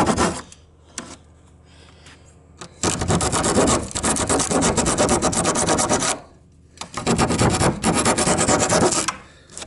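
A coarse-toothed hand saw cutting down through the crushed plywood tongue-and-groove edge of a Warmboard subfloor panel, in two spells of quick back-and-forth strokes with a short pause between. A single thump comes right at the start.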